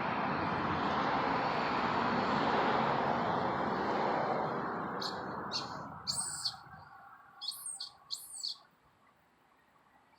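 A loud rushing noise that swells and then fades away over the first seven seconds, and, as it dies down, about five short, high-pitched bird chirps in quick pairs.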